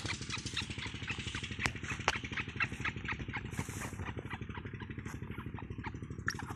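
A small engine running steadily with a fast, even pulsing beat, with short sharp chirps scattered irregularly over it.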